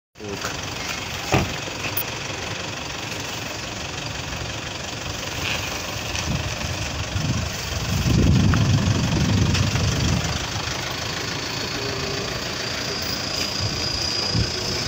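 A large SUV's engine running close by, growing louder from about seven seconds in and easing off after ten seconds as the vehicle moves past. A single sharp knock about a second in.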